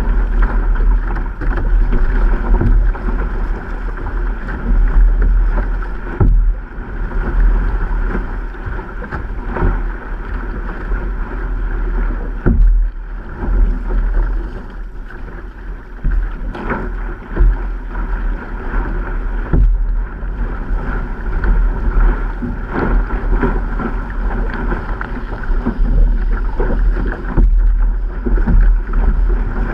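Water rushing and splashing along an outrigger canoe's hull as it rides a wave, with scattered sharper splashes and heavy wind rumble on the microphone.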